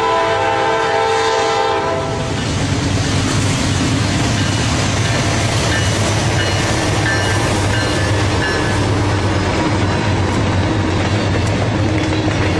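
Norfolk Southern diesel freight locomotive's horn sounding a long blast that cuts off about two seconds in. Then the locomotives' engines rumble and the wheels of covered hopper cars clatter along the rails as the train rolls past.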